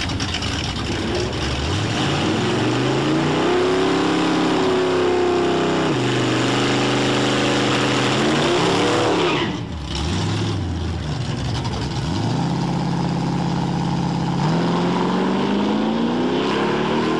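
Car engine revving up and down several times, its pitch climbing and falling, with a brief drop in level about nine and a half seconds in before it picks up again.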